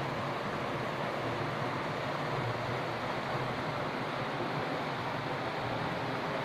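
Shallow river rushing steadily over rocks in small rapids, a continuous even wash of water.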